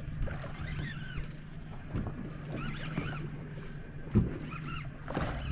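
Outboard boat engine idling with a steady low hum, with a few short knocks on the hull or tackle.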